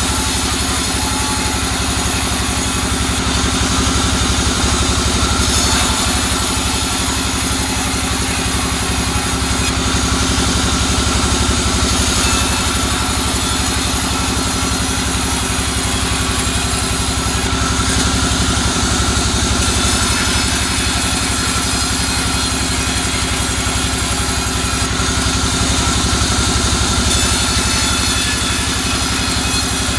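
Large sawmill bandsaw running steadily while ripping boards of soft albasia wood. The high hiss of the blade in the cut drops back briefly about every seven seconds, between boards.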